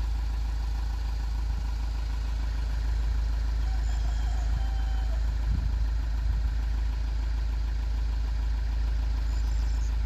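A vehicle's engine idling steadily, a low even rumble.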